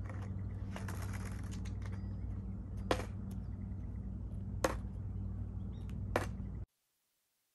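Outdoor ambience: a steady low hum with a few sharp clicks, roughly one every one and a half seconds. The sound cuts off abruptly near the end.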